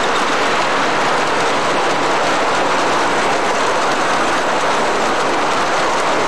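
O scale model train rolling along the layout track: the steady, even running noise of its metal wheels on the rails.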